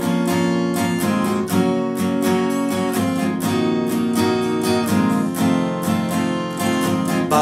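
Acoustic guitar strummed in a steady rhythm, chords ringing with no singing over them.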